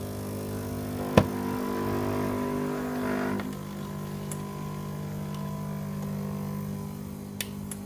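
Capsule coffee brewer running as it brews: a steady electric pump hum, with a sharp click about a second in and a slight drop in the hum after about three and a half seconds.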